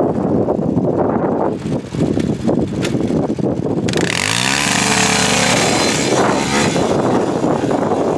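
ATV engine running, revving up about four seconds in and holding higher for a moment, with wind buffeting the microphone.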